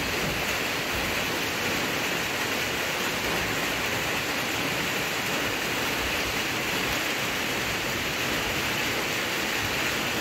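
Steady rain falling, a constant even hiss with no change throughout.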